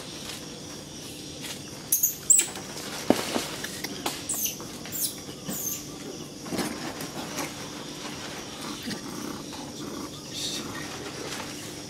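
A few short, very high-pitched falling squeaks from a small animal, most of them close together a few seconds in, with some light clicks and a faint steady hum underneath.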